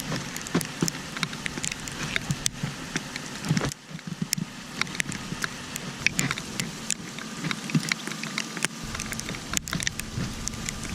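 Ice pellets and freezing rain pattering and ticking irregularly on surfaces, with a faint steady low hum underneath.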